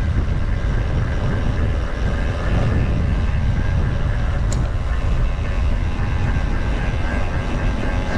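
Steady wind rush over the microphone and tyre rumble from a mountain bike riding at speed on a cross-country trail.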